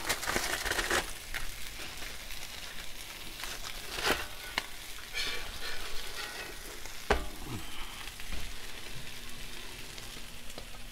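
Chicken wings and a pressed sandwich sizzling on the steel plate of a gas flat-top griddle. A few sharp knocks from a metal spatula on the plate cut through the sizzle, the loudest about seven seconds in.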